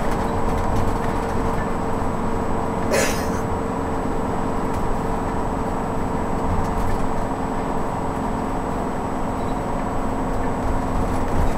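Steady road noise inside a moving RV's cab: engine and tyres running on wet pavement at about 40 mph, a low even rumble with a faint steady hum. A brief hiss cuts in about three seconds in.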